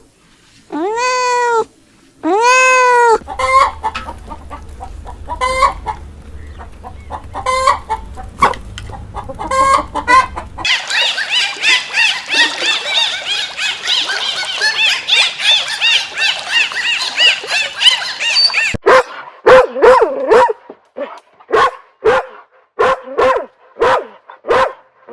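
A cat meowing twice, then chickens clucking, then a dense chorus of high chirping, then a run of short repeated calls.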